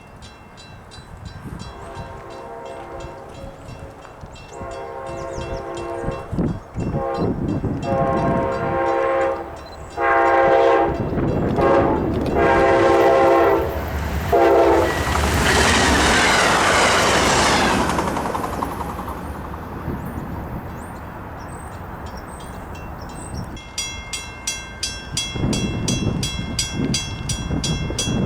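A passenger train's multi-note horn sounds about five blasts as the train approaches. The train then passes in a loud rush of wheel and wind noise, which fades, followed near the end by a rapid, regular clicking of wheels on the rails.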